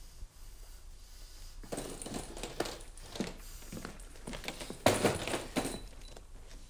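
Footsteps and rustling of a man walking in and stepping over sleeping bags on the floor: irregular soft knocks and crinkling starting about a second and a half in, with the loudest knock a little under five seconds in.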